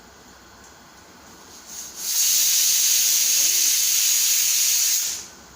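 Pressure cooker whistle: steam jets from the weight valve in a loud, steady hiss for about three seconds, starting about two seconds in after a brief puff. The cooker has come up to pressure and is venting, one of the whistles counted to time the cooking.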